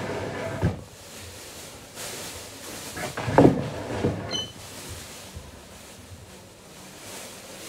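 Off-camera household knocks and handling noises of someone moving about, with the loudest sound, a creak or scrape, about three and a half seconds in.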